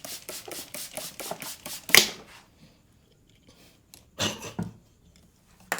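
Hands slapping in a fast percussive massage, about six or seven quick strikes a second. About two seconds in comes one much louder sharp strike. A brief cluster of strikes follows a couple of seconds later.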